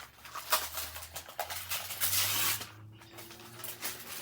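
Gift wrapping paper rustling and tearing in irregular bursts, the longest and loudest tear about two seconds in.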